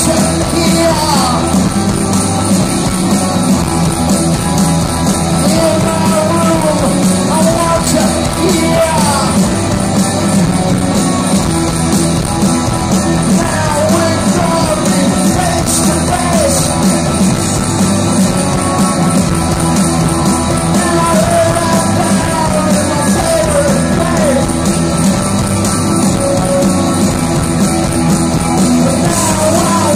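Live punk rock band playing loud through a festival PA, heard from within the crowd: electric guitars, bass and drums, with a male voice singing and yelling over them.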